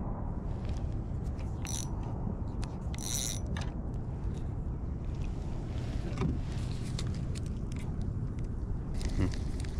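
Spinning rod and reel being handled and worked: scattered light clicks and ticks, with a brief hiss about three seconds in, over a steady low rumble.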